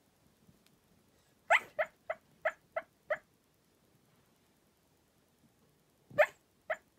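Cairn terrier barking in its sleep: a quick run of six short barks about a second and a half in, then two more near the end.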